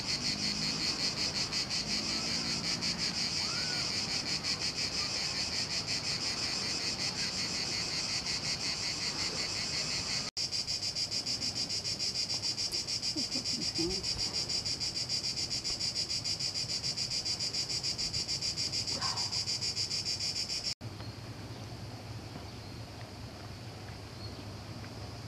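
A loud chorus of insects shrilling in a fast, even pulse. It breaks off abruptly about ten seconds in and again about twenty seconds in, and after the second break the insects are much fainter over a low hum.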